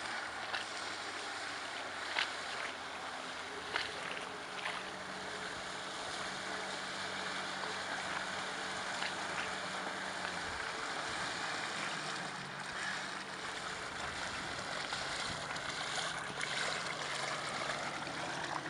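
HDX T9.8 BMS two-stroke outboard motor running steadily as it drives an inflatable boat across the water. Its pitch drops about ten seconds in as the boat slows and comes in toward the bank.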